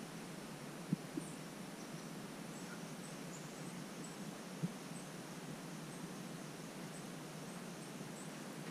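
Quiet rural outdoor ambience: faint, short, high-pitched chirps scattered every half second or so, and three soft knocks, two of them close together about a second in and one near the middle.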